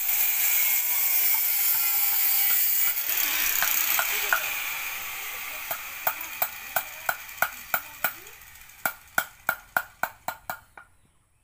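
An electric power tool runs with a hissing whirr that fades steadily away, and over it come sharp metallic taps of a hand hammer striking steel, speeding up from about two to four or five a second before stopping just before the end.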